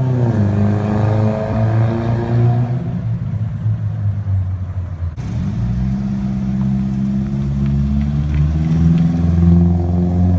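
Subaru Forester's flat-four engine running through a Spec-D Tuning cat-back exhaust, with a low, steady exhaust drone. The revs fall away at first and settle. About five seconds in the sound changes abruptly, then the pitch slowly climbs as the revs build again.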